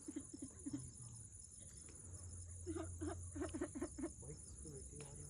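Crickets chirping steadily, with two runs of short, low, quick pulses over them.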